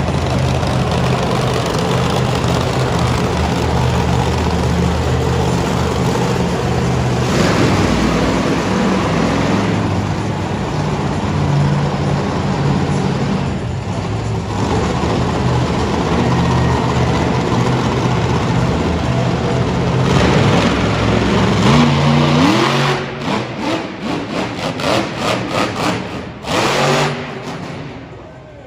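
Monster truck engine running hard and steady, then in the last several seconds a quick series of throttle blips with rising revs, the sound swelling and falling sharply each time. Near the end the engine drops off as the truck leaves the ground in a jump.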